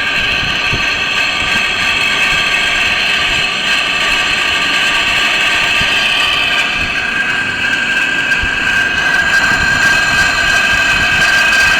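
Large lathe turning a steel rolling-mill roll, the cutting tool on the steel making a steady high-pitched whine over the machine's running noise, growing slightly louder near the end.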